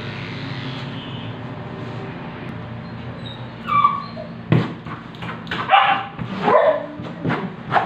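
An electric pet clipper hums steadily for the first few seconds. Then a small dog gives a short whine and a string of sharp yips and barks, the loudest sounds here.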